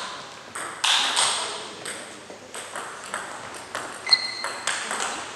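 Table tennis balls clicking off bats and tables in a rally, with more clicks from other tables nearby. A brief high squeak about four seconds in.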